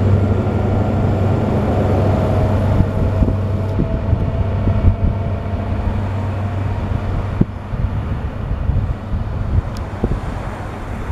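High Speed Train's Class 43 diesel power car running with a low drone as the train moves away along the line. The drone fades over the seconds, with a few sharp clicks later on.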